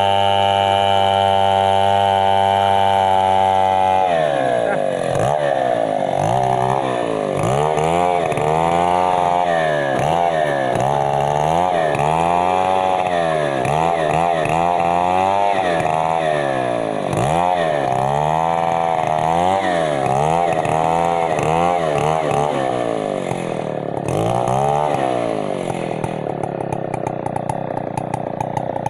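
Stihl MS 070, a large two-stroke chainsaw, working a mahogany tree. It runs steady at high revs for about four seconds, then its engine speed rises and falls over and over, about once a second, and drops lower and rougher near the end.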